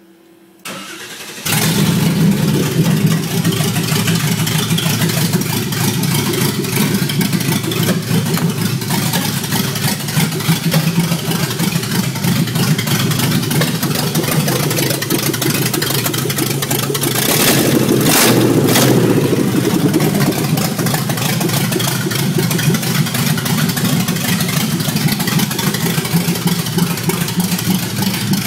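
LT1 V8 engine of a custom GMC Jimmy-based Tyclone cranks briefly and catches about a second in, then runs steadily at a loud idle. A little past the middle the engine sound swells briefly, like a short rev, before settling back to idle.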